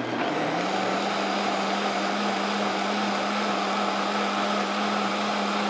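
Nutribullet Combo 1200-watt blender motor running on high, blending sea moss and water into gel. It comes up to speed in the first second, then runs with a steady whine.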